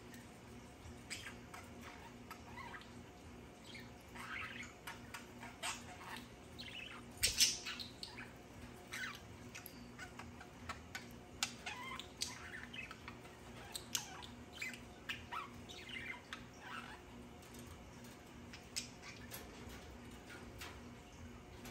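Pet birds chirping and squawking in short, scattered calls, with the loudest squawk about seven seconds in. A faint steady hum runs underneath.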